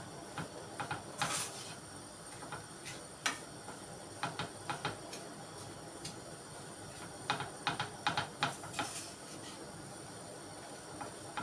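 Wooden spatula clicking and scraping against a frying pan in short irregular clusters as grated red cabbage is stirred and sautéed in oil, over a steady faint sizzle.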